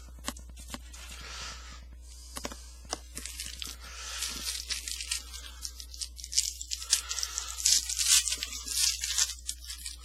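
Foil wrapper of a trading card pack being torn open and crinkled, with scattered sharp crackles and clicks, getting busier and louder in the second half.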